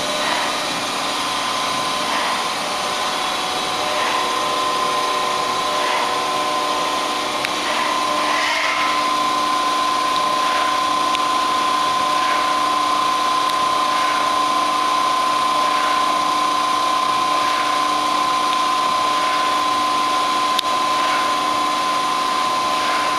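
Okuma LC20 CNC turning lathe running with its spindle and chuck turning: a steady mechanical whine with one clear held tone over a hiss, and a faint soft tick repeating about once a second.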